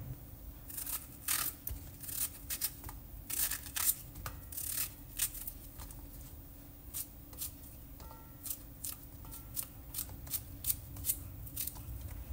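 Kitchen knife cutting courgette into small cubes on a plate: an irregular series of short, crisp cuts, quick and close together at first, then more spaced out.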